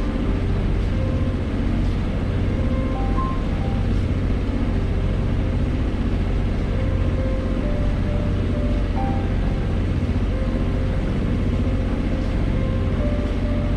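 Background music with a slow melody over a steady low drone from the sailboat's inboard engine, running as the boat motors under bare mast with the mainsail furled.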